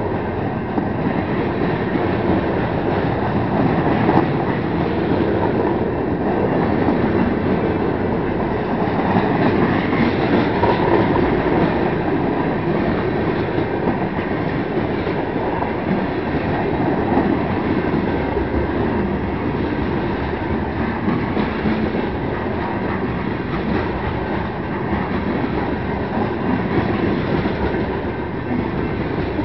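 Freight cars of a passing train, centerbeam flatcars and then tank cars, rolling by close at hand. Their steel wheels on the rails make a steady rolling noise.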